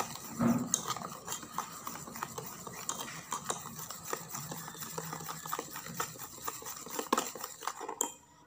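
Wire whisk beating runny batter in a stainless steel bowl: quick clicking and scraping of the metal wires against the bowl, which stops near the end.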